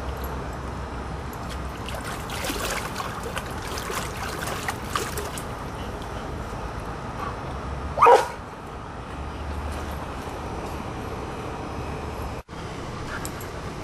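Airedale terrier barking once, a short sharp bark about two-thirds of the way through. Irregular short clicks and rustles come before it.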